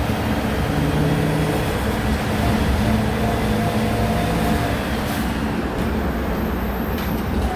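Volksbus 17-230 OD natural-gas (CNG) city bus running, a steady low drone with faint humming tones that shift slightly in pitch.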